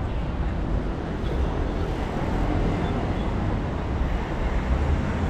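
Steady city-street traffic noise heard from a moving bicycle, with a heavy low rumble underneath and no distinct events.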